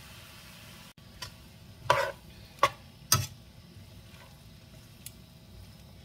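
Metal tongs tossing fried cabbage in a nonstick skillet, knocking against the pan four or five times in quick succession, the loudest knock about two seconds in. Before that, a steady hiss cuts off abruptly about a second in.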